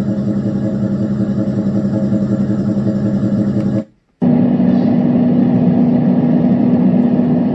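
Renpho white noise machine playing its recorded fan sounds: a steady motor hum under an even rush of air. About four seconds in it cuts out briefly and switches to a different fan sound with a higher hum.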